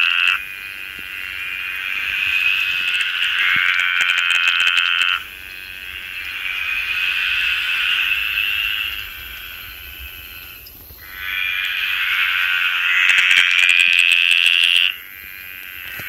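Small green tree frog calling: long trilling calls of several seconds each, building in loudness and cutting off suddenly, with brief gaps between them.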